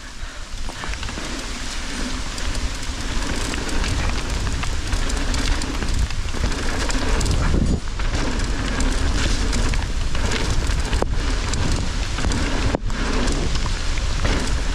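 Heavy rain falling steadily, a dense hiss of countless drops, with a low wind rumble on the microphone.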